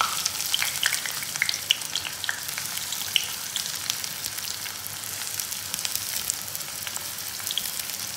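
Sliced onions frying in hot mustard oil in a kadhai: a steady sizzle with sharp crackles and pops, more frequent in the first three seconds or so, then settling to a more even hiss.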